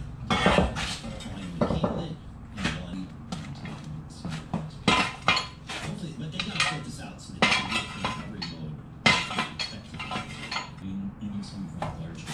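Irregular metal clanks and clinks of heavy steel snowplow push-plate and mount parts being moved, knocked together and set down.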